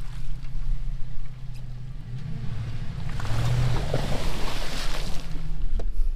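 A 4x4 truck's engine running steadily while driving on snowy trail, with a surge of rushing noise about three seconds in.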